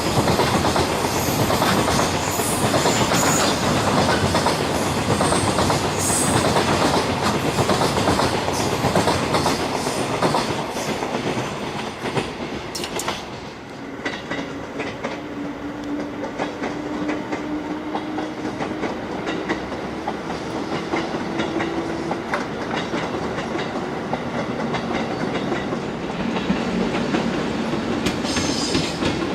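Train running past on the rails, its wheels clattering over the rail joints. The noise is loudest for the first dozen seconds, then eases, and a steady hum holds for several seconds in the middle.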